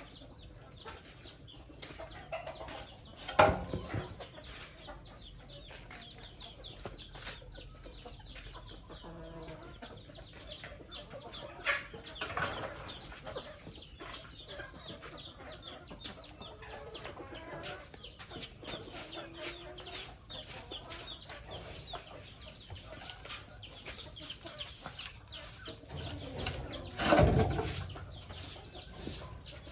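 Chickens clucking and chirping, with many short, high, falling calls. Three louder sudden noises stand out, about three seconds in, near twelve seconds, and near the end.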